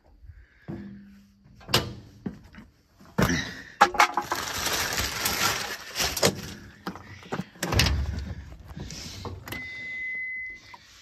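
Someone climbing into a skid steer's cab: thunks and knocks of boots and hands against the steel frame and seat, with clatter and rustling. Near the end the key is turned in the ignition and a steady high warning beep sounds for about a second.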